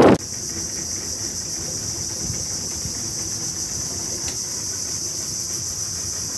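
Insects in mangrove forest droning steadily in one high, unbroken chorus.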